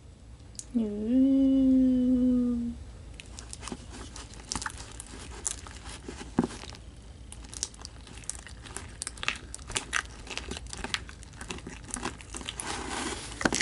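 Homemade glue-and-contact-solution slime, gone stiff, being kneaded and pulled in the hands, making many small sticky clicks and crackles from about three seconds in. Near the start a person hums one short note.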